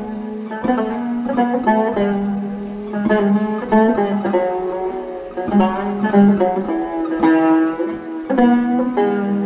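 Turkish tanbur, a long-necked fretted lute, played with a plectrum, improvising in makam Hüzzam: a flowing line of plucked notes that ring on between strokes.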